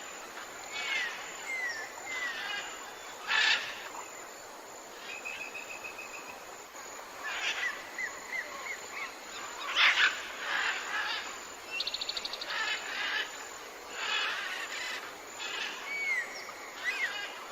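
Chorus of tropical forest birds calling over one another: short falling whistles, fast even trills and harsh squawking calls, the loudest about three and a half and ten seconds in.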